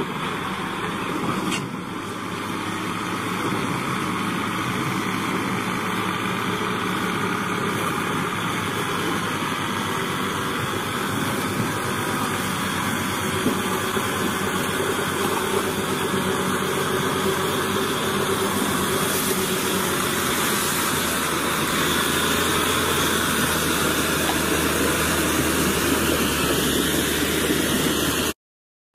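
Truck-mounted crane's engine running steadily as the truck drives slowly down a barge ramp, with a constant hiss over it. It grows a little louder in the second half and cuts off just before the end.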